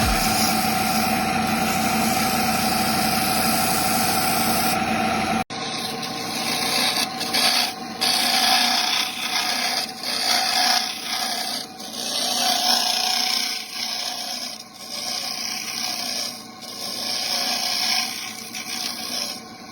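Woodworking power tool running steadily against wood. After an abrupt cut about five seconds in, wood is rubbed abrasively in uneven strokes that rise and fall.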